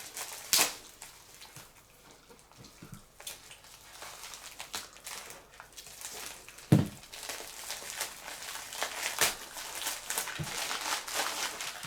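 Packaging being opened and handled by hand, crinkling and rustling in irregular bursts, with scattered clicks and one sharper thump about seven seconds in.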